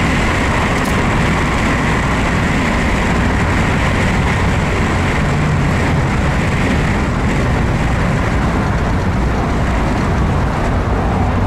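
Steady wind and road noise in the open cabin of a 1949 Cadillac Series 62 convertible cruising at freeway speed with the top down.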